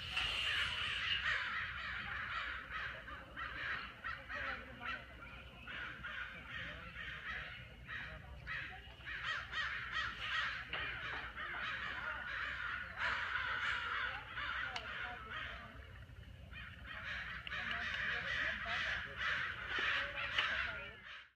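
A dense chorus of many birds calling at once, with harsh calls overlapping continuously. It eases off for a moment about two-thirds of the way through and then swells again.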